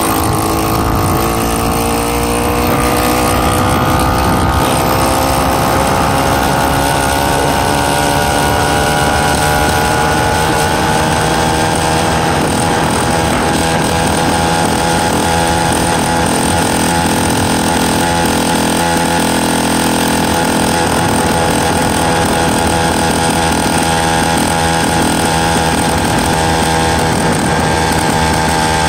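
PK80-type two-stroke motorized-bicycle kit engine running under load as the bike rides along, its pitch climbing over the first ten seconds as it speeds up, then holding steady at cruising speed.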